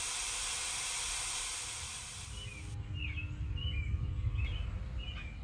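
Steady hiss of a fine water mister spraying, cutting off abruptly about two and a half seconds in; then small birds chirping, a string of short calls.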